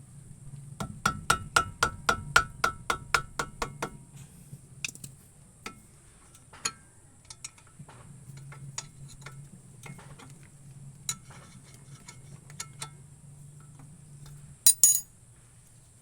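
Loose brake caliper bolt pin rattling in its bore: a quick even run of metallic clinks, about four or five a second, for about three seconds, then scattered clinks and a sharp double knock near the end. A faint steady low hum lies underneath.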